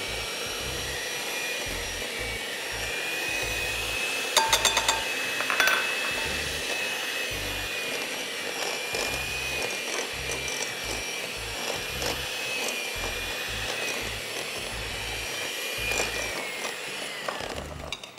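Electric mixer beating butter and sugar, its motor whining steadily with a slightly wavering pitch. A few sharp clicks come about four to six seconds in, and the motor winds down near the end.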